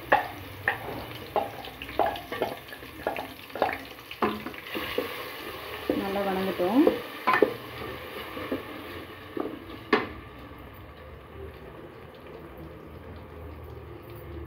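Ginger-garlic-onion paste frying in hot oil in an electric cooker's pot, stirred with a wooden spoon: repeated knocks and scrapes of the spoon against the pot over a steady sizzle. The knocks stop about ten seconds in, leaving the sizzle.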